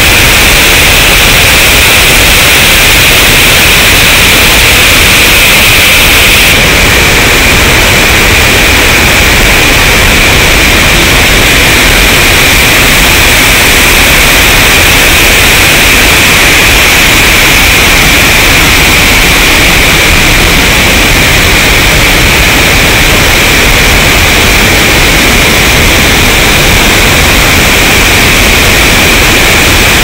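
Loud, steady rushing of water pouring over a check dam, an even hiss-like sound with no pauses or changes in rhythm.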